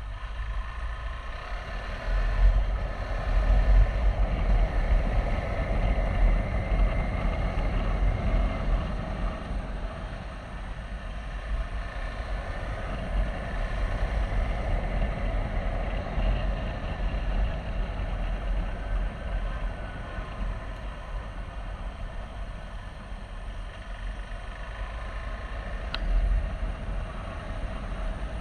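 KTM 390 Adventure's single-cylinder engine running while the motorcycle is ridden, its note swelling and easing, under heavy wind rumble on the microphone. A brief click near the end.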